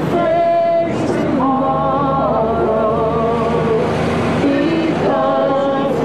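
Choir music, with male and female voices singing long held notes together.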